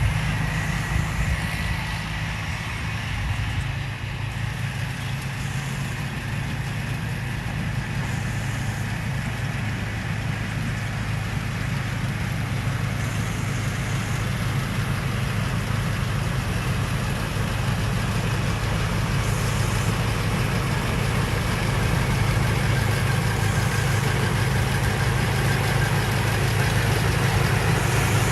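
TAMCO combine harvester's diesel engine running steadily while harvesting rice, a constant low hum that grows slightly louder toward the end.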